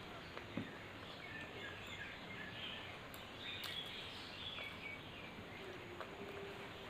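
Eating sounds from a mukbang: chewing and a few sharp mouth clicks over a steady background hiss, with faint bird chirps.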